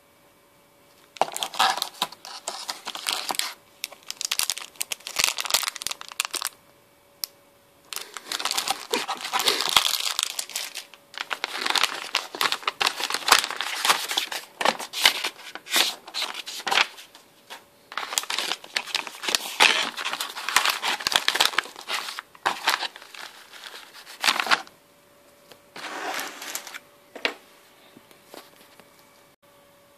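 Plastic and paper packaging crinkling and rustling as a parcel is unpacked by hand, in bursts of a few seconds each with short pauses between them.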